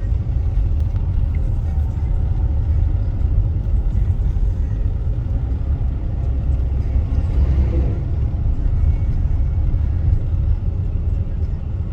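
Steady low rumble of road and engine noise inside a moving car's cabin while driving.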